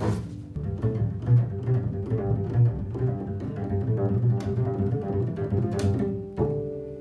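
Double bass playing a quick line of short, low notes, with a couple of sharp clicks in the middle. A longer, higher note starts shortly before the end.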